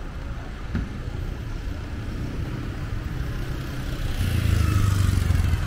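Motor traffic: a steady engine rumble, with a vehicle passing close by and falling in pitch about four seconds in.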